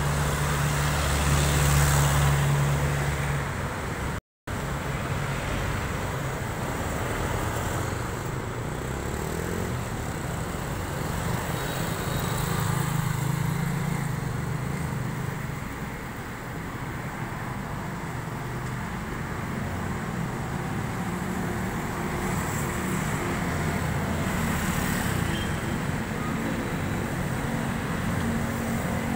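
Steady street traffic noise with a vehicle engine running close by, a low hum under the road noise. The sound drops out for an instant about four seconds in.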